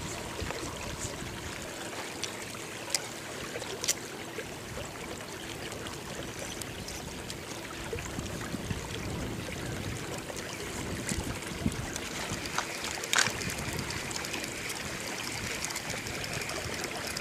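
Water trickling and lapping against the side of a small boat, with a few light knocks, the loudest about thirteen seconds in. A faint steady hum lies underneath and fades out near the end.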